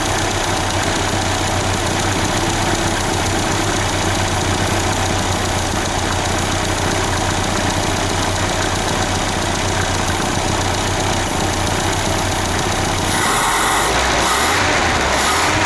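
Peugeot 505 engine idling steadily on its newly fitted carburetor, a constant low hum under an even mechanical noise. About thirteen seconds in, the low hum fades and a louder rushing noise comes in.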